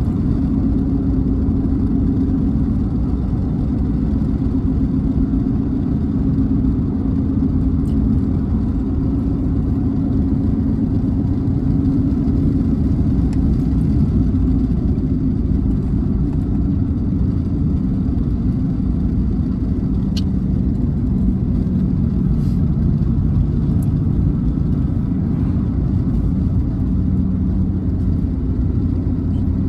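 Car driving at steady road speed, heard from inside the cabin: a continuous low rumble of tyres and engine with a drone that drifts slightly in pitch.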